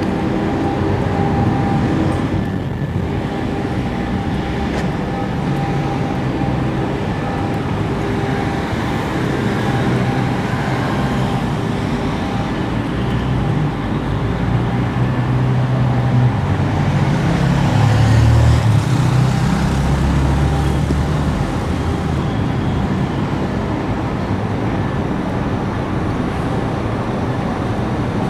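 Steady roadside traffic noise from passing vehicles. A low engine rumble swells in the middle and is loudest about two-thirds of the way through, then fades back into the general noise.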